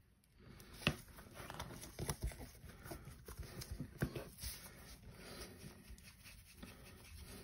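Gloved hands handling a paint pot and a folded paper towel on a cutting mat: a few light knocks, about one, two and four seconds in, over soft rustling.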